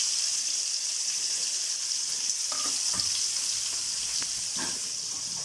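Ginger, fennel seeds and cinnamon frying in hot oil for a kurma tempering: a steady sizzle. A few light knocks sound about halfway through and near the end.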